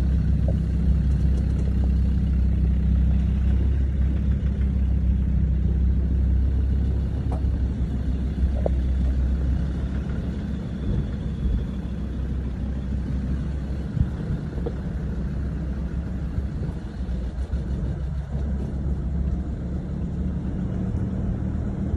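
Off-road 4x4's engine running steadily at low revs on a slow crawl over a rough gravel track, heard from inside the vehicle as a low continuous hum, with a few light knocks; it eases off a little about halfway through.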